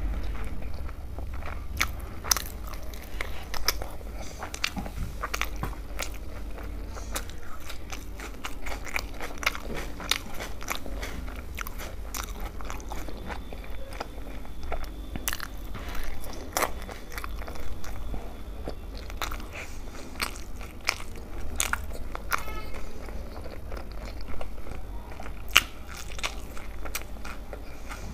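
Close-miked chewing and mouth sounds of a person eating tandoori roti dipped in dal makhni: a steady run of sharp, irregular wet clicks and soft crunches, over a steady low hum.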